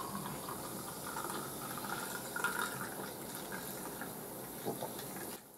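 A carbonated drink poured from an aluminium can into a glass tumbler: a steady stream of liquid splashing and fizzing as the glass fills. It cuts off suddenly near the end.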